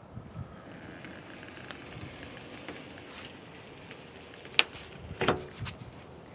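Plastic body side molding being peeled off a pickup's door, its double-sided adhesive tape tearing away from the paint with a faint crackle, a sharp snap about four and a half seconds in and a few smaller clicks just after.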